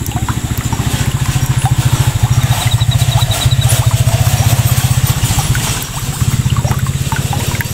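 A low, steady mechanical running sound like a small engine idling, swelling slightly about two seconds in and dipping briefly near the end, with light scattered ticks over it.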